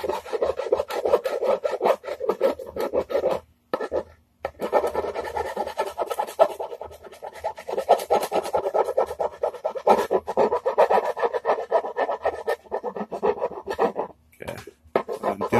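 A hand file, used on its round side, rasping in quick back-and-forth strokes on the painted edge and corner of a guitar body as the paint chips off. It breaks off twice, about three and a half seconds in and near the end.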